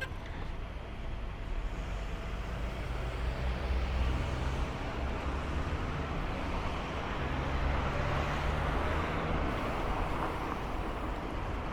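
Road traffic noise: motor vehicles running past, a steady low rumble that swells and eases a couple of times.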